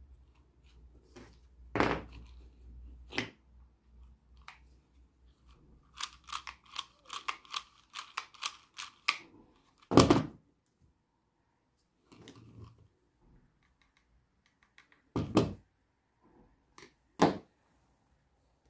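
A string trimmer's plastic recoil starter being handled on a wooden workbench. There is a quick run of small clicks from its mechanism from about six to nine seconds in, and several separate knocks of the plastic housing against the bench. The loudest knock comes about ten seconds in.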